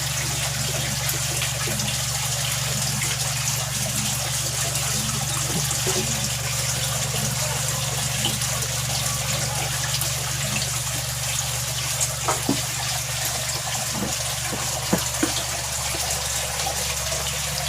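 Two Aquaspeed 5-watt aquarium air pumps running together with a steady low hum, air bubbling through water, both pumping again after a fault that had stopped their air output was repaired. A few faint clicks come near the end.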